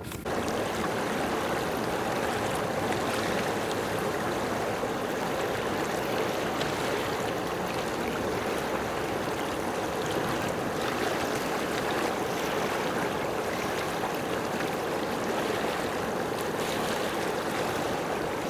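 Steady rushing of running water, starting suddenly just after the start and holding even throughout.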